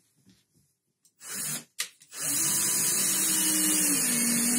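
Cordless drill running against a wall panel: a short burst, then a steady run of about three seconds whose motor pitch drops slightly partway through as it takes load, then stops.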